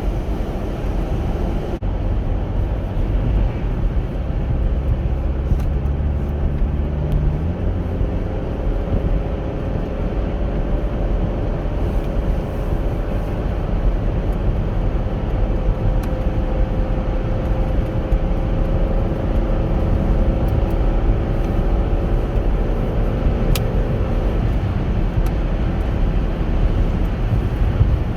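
Chevrolet Captiva SUV driving on a road: a steady engine and tyre rumble. The engine note steps up about a third of the way in, then holds a steady hum that fades out near the end.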